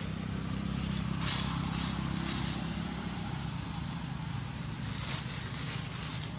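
A motor engine running steadily as a low hum, strongest in the first few seconds and slowly fading, with a few short crunches of dry leaves as the monkeys step through the leaf litter.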